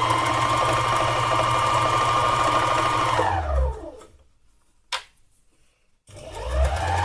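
Dry-felting needle machine running steadily as wool is punched into a felt leaf. About three and a half seconds in it winds down and stops, falling in pitch. After a short pause with a single click, it starts again about six seconds in and speeds up.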